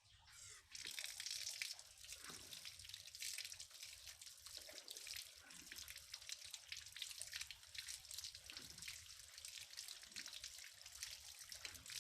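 Water running from a tap into a sink while hands are washed, starting under a second in.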